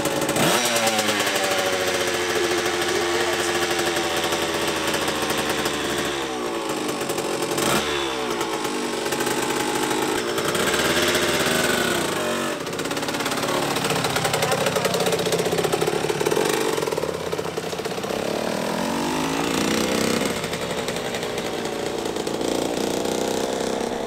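Dirt bike engine running and revving, its pitch rising and falling again and again as the bike rides off.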